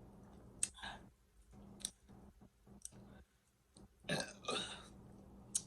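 A woman burping about four seconds in, a burp in two pulses brought on by drinking Coke Zero, with a few sharp clicks scattered before it.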